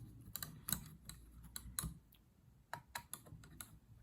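Scattered light clicks and taps of a tool on the small screws of an RC car's radio plate and chassis, as the screws are loosened one by one.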